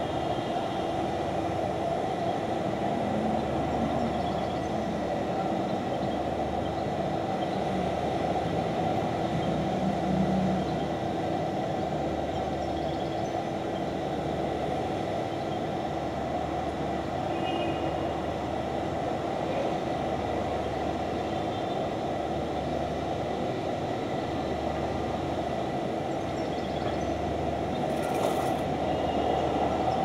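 Steady city background noise heard from a high balcony: a continuous rumble with a held hum, unchanging throughout, with a few faint high chirps.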